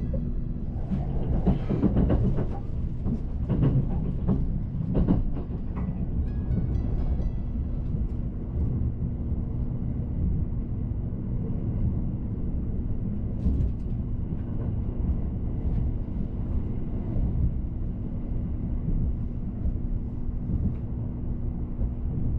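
E353-series Limited Express Azusa running along the line, heard from inside the passenger car: a steady low rumble with a constant hum. Several louder surges come in the first five seconds, and faint musical notes sound around six seconds in.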